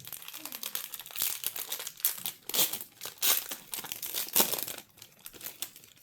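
Foil trading-card pack wrapper being crinkled and torn open: a run of irregular crackles, loudest about four seconds in, then quieter near the end.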